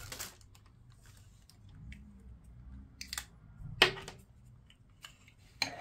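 Thin plastic packaging bag crinkling as it is handled, at the start and again near the end. In between come a few light clicks and one sharp plastic tap a little under four seconds in, as a small plastic part is handled.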